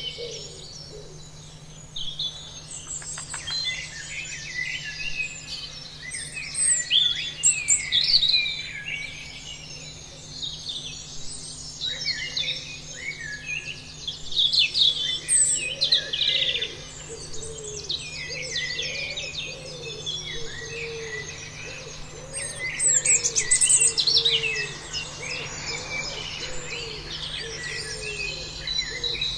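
A dense chorus of many small birds chirping and singing together without pause, with lower, repeated calls underneath.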